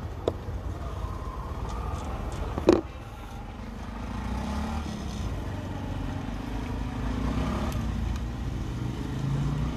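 Street traffic: a steady low rumble of passing cars and motorbikes, with engine tones gliding up and down. About three seconds in comes a single short, sharp knock, the loudest sound.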